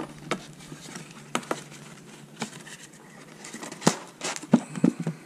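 Cardboard trading-card box handled and opened by gloved hands: scattered taps, scrapes and rustles of cardboard, with a cluster of sharper clicks about four seconds in.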